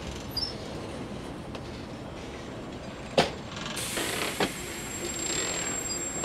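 Last hopper wagons of a slow freight train rolling past, the wheels rumbling on the rails with two sharp clanks a little past halfway.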